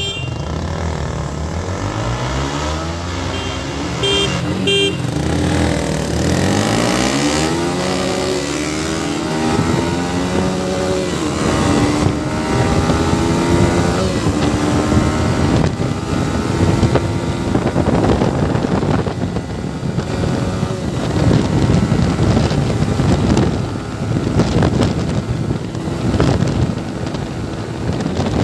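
Single-cylinder motorcycle engine accelerating hard through the gears, its pitch climbing in each gear and dropping back at each upshift. It then holds at high speed under heavy wind noise on the microphone.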